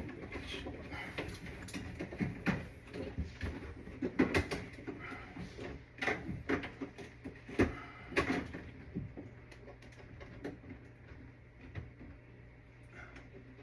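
Irregular knocks and clicks of work on an HVAC install, dense for the first nine seconds or so and sparse after, over a low steady hum.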